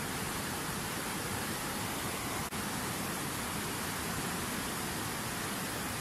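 Fast mountain river of white water rushing over rocks: a steady, even rush, with an instant's dropout about halfway through.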